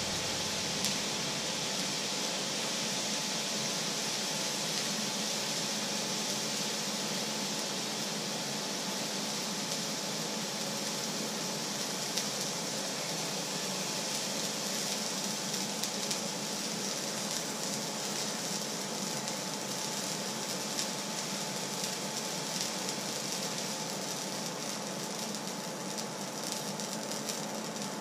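Hot frying pan on an electric hob hissing and sizzling with the occasional tiny crackle as steam pours off it, the hiss slowly dying down. A steady hum runs underneath.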